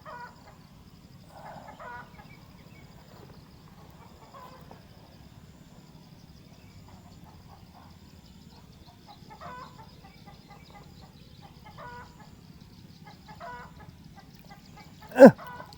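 Faint chicken clucks, short calls every couple of seconds, over a steady low hum. Near the end a brief loud sound sweeps down in pitch.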